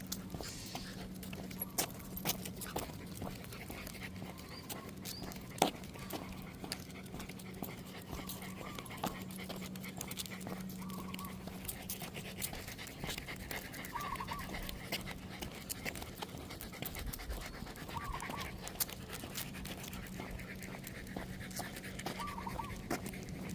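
A dog panting on a walk, with many small scattered clicks and ticks, an on-and-off low hum, and a few short high chirps.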